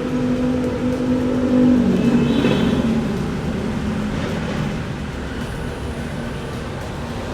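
A vehicle's motor hums with a steady tone that drops lower about two seconds in, over a constant wash of traffic noise.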